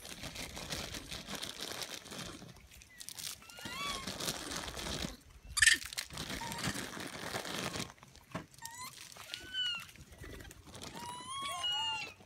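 Long-tailed macaques giving short, high squeaky calls that rise and fall, a couple early on and a cluster near the end, over steady rustling and crinkling; one sharp crackling burst about halfway through is the loudest sound.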